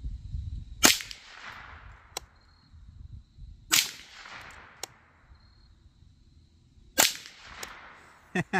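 Three shots from a Derya TM22 .22 LR semi-automatic rifle, about three seconds apart, each with a short echo. A fainter click follows about a second after each shot.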